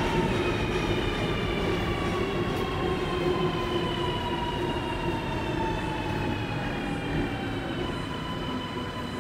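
Sydney Metro Alstom Metropolis electric train moving slowly past, its traction drive whining in several tones that slowly fall in pitch and then level off, over a steady rumble of wheels on rail.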